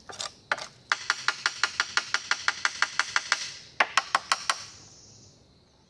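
Knife tapped rapidly against a weathered wooden plank table: a couple of single knocks, then a quick even run of about six knocks a second, a short pause, and a few more knocks. The knocking is a signal calling squirrels to come for fruit.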